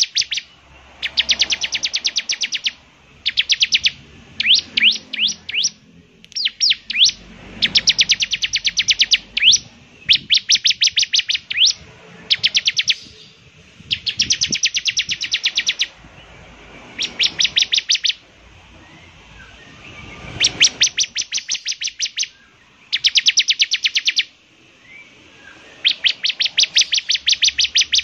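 Bar-winged prinia (ciblek) singing vigorously: phrases of rapid, sharp high notes, about eight to ten a second, each phrase lasting one to two seconds and repeated after short pauses, some phrases made of upward-sweeping notes.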